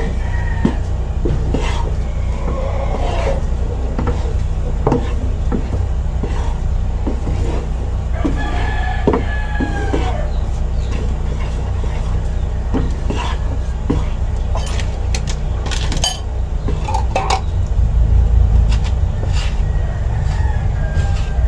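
Wooden spatula stirring a thick, pasty mixture in a stainless frying pan, with repeated scrapes and knocks against the pan, over a steady low hum. A rooster crows in the background, once at length about halfway through, with shorter calls near the start and end.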